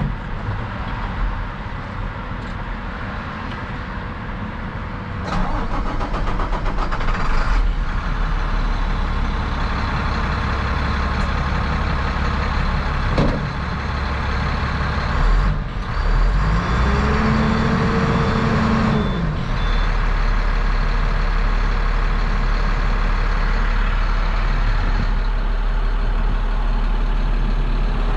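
International DT466 diesel engine of a 2005 International 4300 truck, heard from the cab: it starts about five seconds in and settles into a steady idle. Near the middle the engine note rises and falls once over a few seconds, with a faint high beeping, and then it idles steadily.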